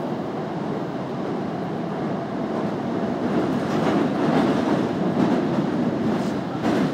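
Osaka Midosuji Line subway train running, heard from inside the car: a steady rumble of wheels on rail that grows a little louder partway through, with a short clack near the end.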